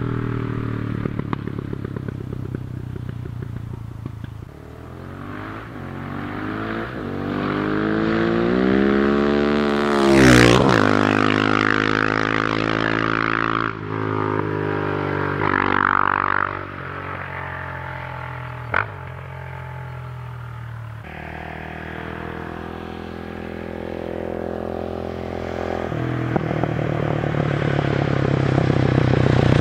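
Husqvarna 701 single-cylinder supermoto revving up and passing close by about a third of the way through, its pitch rising and then dropping as it goes past. It fades as it runs on, gives one sharp pop about two-thirds through, and grows louder again near the end as it comes back.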